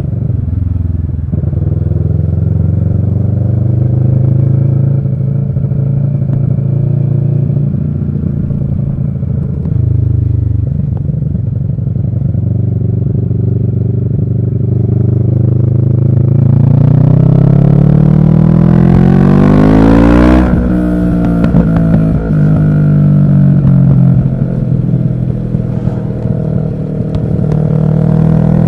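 Kawasaki ER6n's parallel-twin engine with an Arrow exhaust, cruising at a steady pitch, then accelerating hard from about two-thirds of the way in. The revs climb to a peak, drop sharply at an upshift and climb again.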